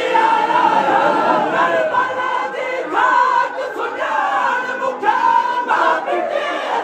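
A large crowd of men singing a Sindhi noha, a Shia mourning lament, together in loud, sustained chanted phrases.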